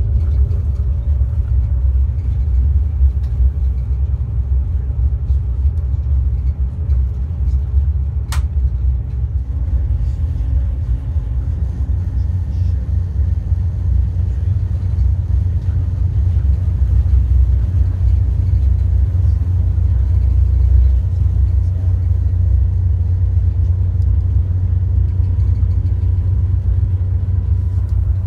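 VIA Rail Budd RDC (Rail Diesel Car) running along the track: a steady low rumble with a faint engine drone, and a single sharp click about eight seconds in.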